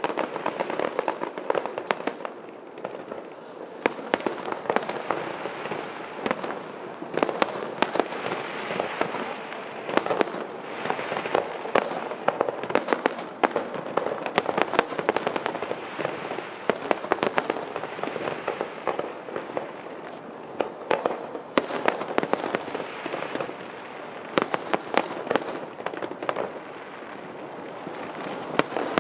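Aerial firework shells bursting in quick succession: sharp bangs at irregular intervals over a continuous crackle.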